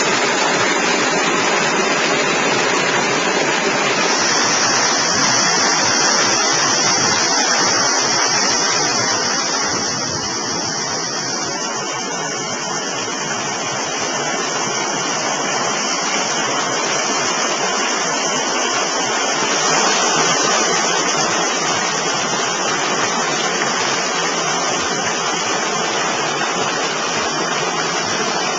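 Steady rushing of flowing water. A higher hiss joins about four seconds in.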